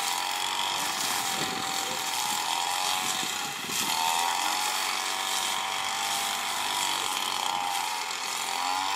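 Farm tractor's diesel engine running steadily, its pitch wavering slowly up and down.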